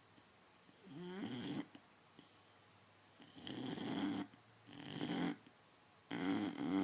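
Boxer dog snoring in its sleep: four rasping, pitched snores, each lasting about a second, with short quiet pauses between breaths.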